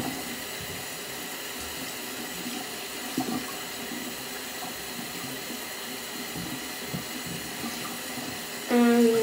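Sink tap running steadily, its stream splashing over and through a small wet plush toy as it is rinsed. A short, louder pitched tone near the end.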